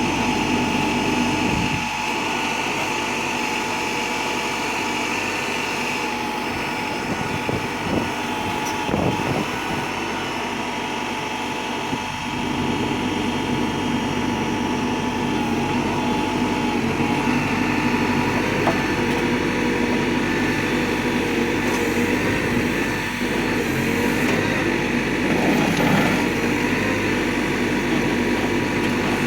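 Terex backhoe loader's diesel engine running steadily with a steady hydraulic whine as it works a concrete pulverizer. A few brief cracks and knocks are scattered through, fitting the jaws crushing concrete.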